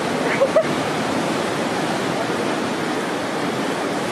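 Steady rushing noise of sea surf and wind at the shore, with two short high-pitched sounds about half a second in.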